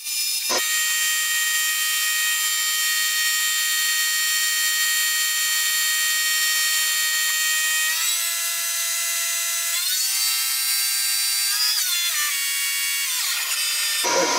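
Bosch diesel injection-pump test stand driving a P7100 inline injection pump during a fuel-delivery balancing run, a steady high machine whine. Its pitch steps up twice, about 8 and 10 seconds in, rises again near 12 seconds, then drops away near the end. A sharp click comes about half a second in.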